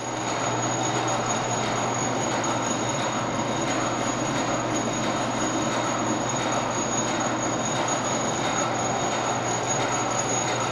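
Steady machine noise: a constant low hum with a thin high whine over a noisy rush, unchanging throughout.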